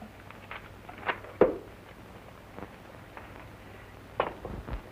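A few scattered knocks and thumps over the steady hiss of an early-1930s film soundtrack. The loudest comes about a second and a half in, and a short cluster follows near the end.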